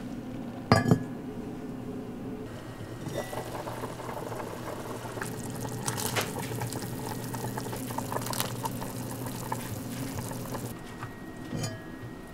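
Pot of soup boiling hard, a dense bubbling and crackling that starts about three seconds in and stops a couple of seconds before the end. A sharp clank comes just under a second in, and a knock near the end as a cast-iron lid is set on a pot.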